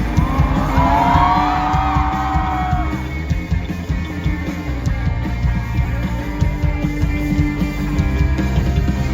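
Band music from an indie pop-rock song: a steady beat and low accompaniment, with a wavering melody line over it in the first three seconds.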